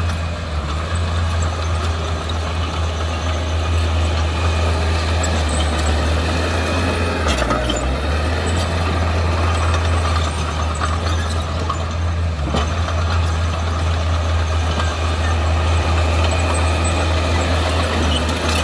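Heavy diesel engine of earthmoving equipment running steadily under load, its low drone briefly changing twice, about seven and twelve seconds in.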